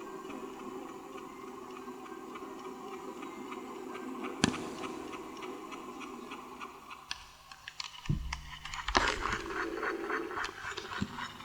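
Playback of an old, damaged magnetic tape: steady hiss with a faint muffled hum, a sharp click about four and a half seconds in, then rapid, evenly spaced ticking and crackle with a few low thumps in the second half.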